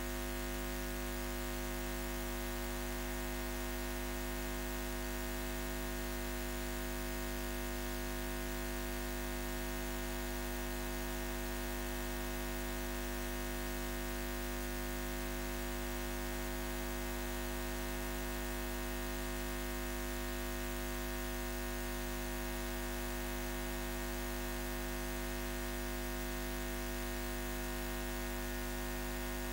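Electrical mains hum: a steady low hum with a stack of higher overtones, under a layer of hiss.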